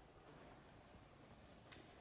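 Near silence: room tone, with one faint tick near the end.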